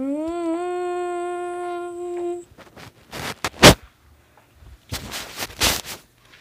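A person's voice holds one long hummed or sung note that rises in pitch about half a second in and stops about two and a half seconds in. Two bursts of rushing noise follow, the first ending in a sharp, loud knock.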